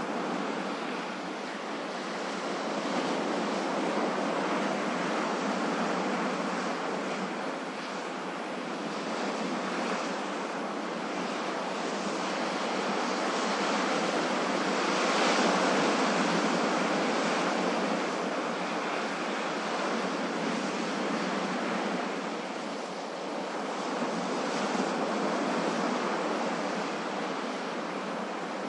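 Ocean waves breaking and washing on a shore, a steady rush of surf that swells and eases every several seconds, loudest about halfway through.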